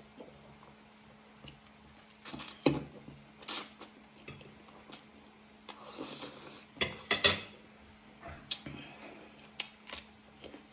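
Eating sounds: spaghetti slurped and chewed with a fork clinking and scraping on the plate, in irregular short bursts separated by quieter gaps.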